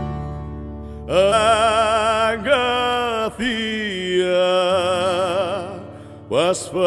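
Male voice singing a Greek song from Zakynthos in long, slow held notes with a wide vibrato, sliding up into its phrases about a second in and again near the end, over soft sustained chordal accompaniment.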